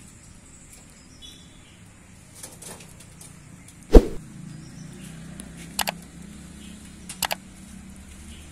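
One sharp knock about four seconds in, then two quick double clicks later on, over a low steady background.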